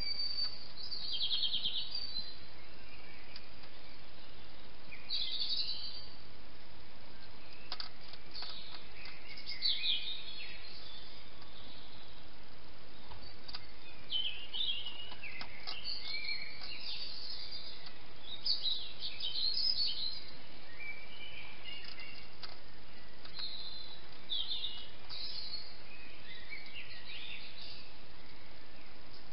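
Songbirds singing in short chirping phrases, scattered through an early-morning dawn chorus, over a steady background hiss, with a few faint clicks.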